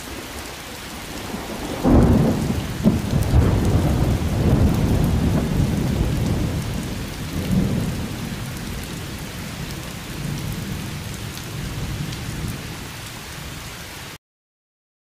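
Rain with a clap of thunder about two seconds in, a long low rumble that rolls on and slowly fades, swelling once more near the middle, before the sound cuts off suddenly near the end.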